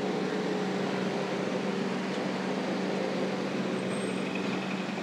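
Sanitizer tunnel's electric pump motor running with a steady hum, over the hiss of its disinfectant mist spraying.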